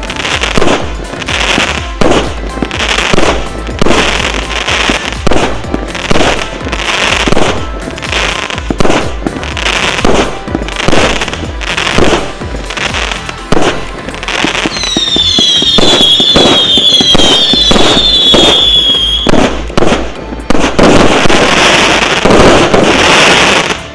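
A 120-shot, 0.8-inch consumer fireworks cake firing, with shots and shell bursts about once a second. Partway through, a volley of several falling whistles overlaps for about five seconds. It ends in a dense, loud finale that stops suddenly at the end.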